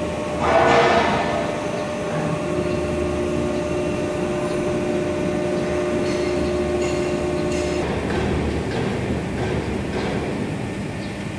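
200-ton hydraulic CNC press brake running with a steady mechanical hum. A brief loud burst of noise comes about half a second in, and a steady whine runs from about two and a half to eight seconds in.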